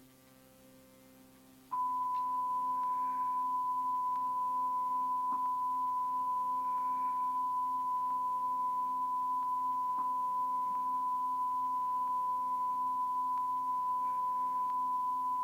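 A moment of near silence, then a steady high pure tone starts abruptly about two seconds in and holds without change: a sine-wave test tone of the kind recorded at the end of a tape or broadcast.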